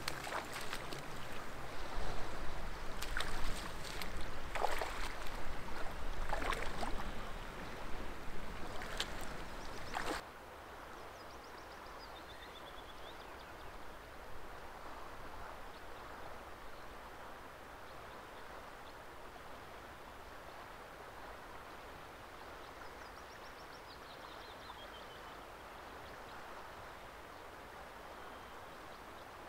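Irregular knocks and scrapes over a low rumble, which cut off abruptly about ten seconds in. A steady hush of running water follows, with a songbird singing a short descending phrase twice.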